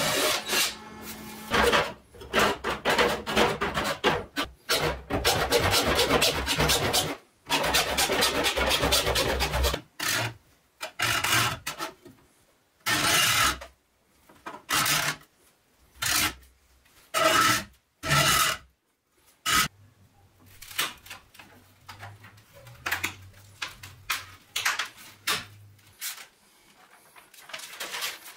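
A compass cutter scoring a circle into a clear plastic sheet: rasping scrapes, near-continuous at first, then separate strokes about a second apart, turning to short, lighter scrapes near the end.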